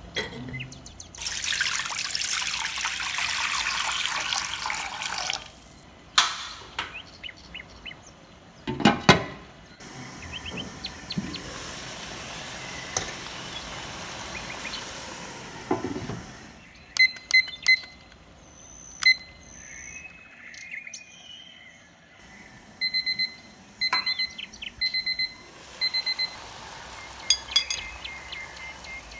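Kitchen sounds of setting up a wok steamer. Water runs into the wok for a few seconds, then a metal steaming rack and a dish knock and clink, and the water hisses as it heats. Later, groups of short high electronic beeps sound several times.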